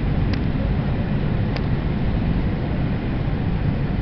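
Steady cabin roar inside a McDonnell Douglas MD-80 on approach to land, from its two rear-mounted jet engines and the rush of air past the fuselage. Two faint clicks about a third of a second and a second and a half in.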